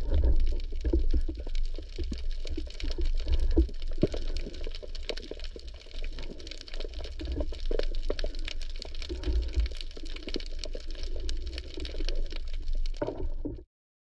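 Underwater ambience heard through a camera in a waterproof housing: a low muffled rumble of moving water with dense crackling clicks. It cuts off suddenly near the end.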